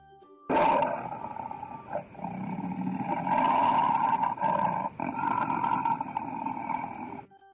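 Tiger roaring. It starts about half a second in, with short breaks about two and five seconds in, and cuts off sharply near the end.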